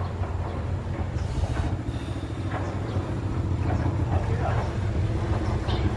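Excavator's diesel engine running steadily, with a few faint knocks and a brief rustle over it.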